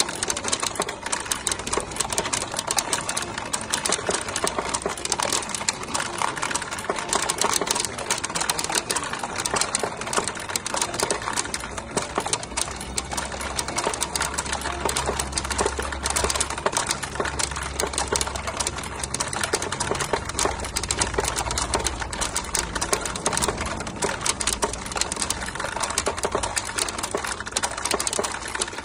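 Pachinko machine in play: a steady, dense, rapid clatter of steel balls being fired and rattling down through the pins of the playfield. A low hum sits underneath for several seconds around the middle.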